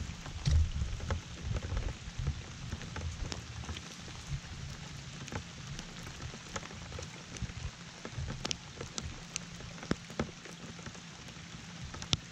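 Steady rain falling on the lake and the boat, with scattered sharp ticks of drops striking close by and a low uneven rumble underneath.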